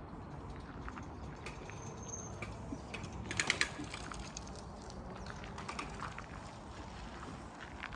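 Footsteps on a forest path: irregular short scuffs and clicks, with a louder cluster of them about three and a half seconds in. A brief high bird note sounds faintly about two seconds in.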